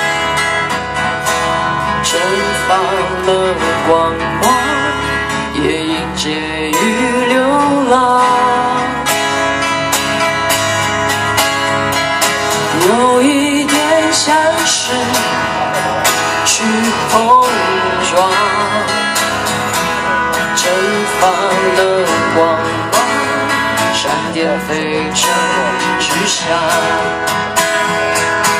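Live acoustic band music: acoustic guitars strumming with a steady beat, and a gliding melody line over them.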